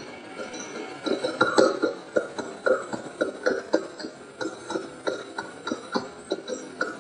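Slowed-down playback, pitch kept, of a staccato sound from an overnight bedroom sleep recording: a rapid run of short, throaty pulses, about three or four a second, starting about a second in. The recordist takes it for voices speaking.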